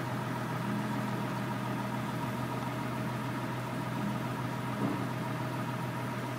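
An engine idling steadily: an even, unchanging drone with a low hum.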